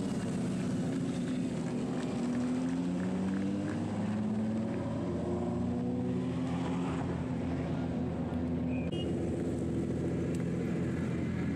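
Autocross Super Buggy racing engines revving hard, their pitch rising and falling as the buggies accelerate and brake around the dirt circuit.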